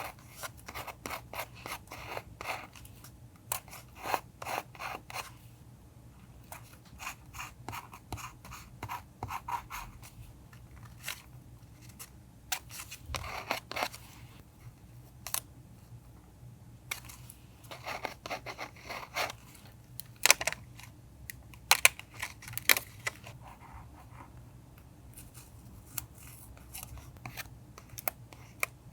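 Scissors cutting paper in short runs of quick snips with pauses between, a few sharper snips about two-thirds of the way through.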